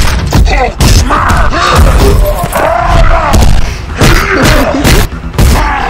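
Fight sound effects: a rapid series of heavy impacts and crashing hits, with a voice grunting and growling between them.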